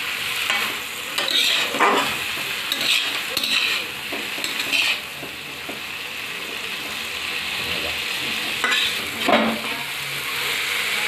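Chopped bottle gourd, potato and prawns sizzling in oil in a metal kadai while a spatula stirs and scrapes them against the pan in irregular strokes. The strokes come thickly for the first few seconds, then mostly give way to the steady sizzle, with a couple more scrapes near the end.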